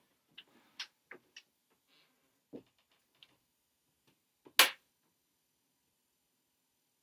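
A few light clicks and knocks, then one sharp, much louder click about four and a half seconds in.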